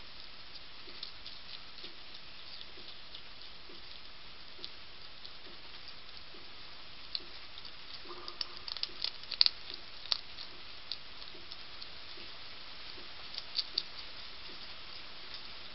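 European hedgehog crunching dry food from a plate, a run of small sharp crunches and clicks over a steady background hiss. The crunches grow into a louder flurry from about eight to ten seconds in, with a few more just before the end.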